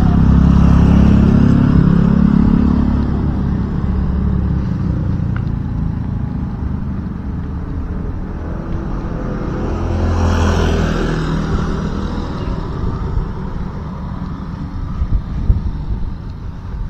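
Motor scooters and small motorcycles running along a narrow lane. One is loudest as it passes in the first few seconds, and another swells up and fades about ten seconds in, over a steady low engine drone.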